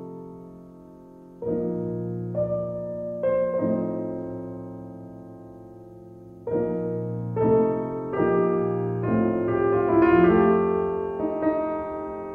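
Background piano music: slow chords, each struck and left to ring and fade, with notes coming more often in the second half.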